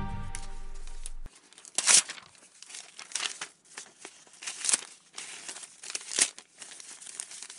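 Background music fading out and stopping just over a second in, followed by irregular crinkly rustling noises, several of them louder bursts.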